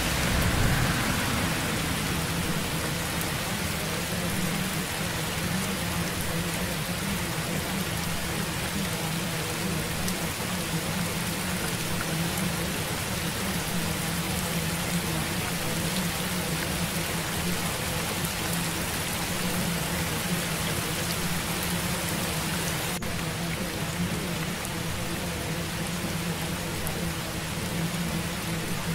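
Steady rain sound, an even hiss, with a low steady hum beneath it.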